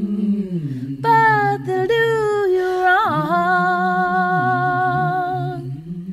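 A woman singing unaccompanied, the song's closing phrase drawn out into long held, humming-like notes with vibrato, stopping near the end.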